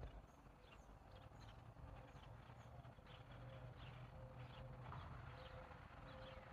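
Near silence with many faint, short bird chirps over a low background rumble.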